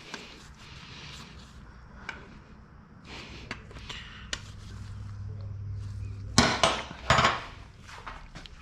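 Hand tools and small metal parts clinking and knocking on a workbench during an oil change, with a louder clatter of several knocks about six and a half seconds in.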